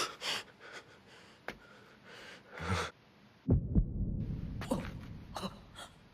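Heavy, ragged breathing with short sharp gasps, broken by a few low thuds a little past halfway.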